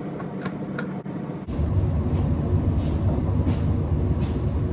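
A steady low rumble that starts suddenly about a second and a half in and holds, with a few light clicks over it.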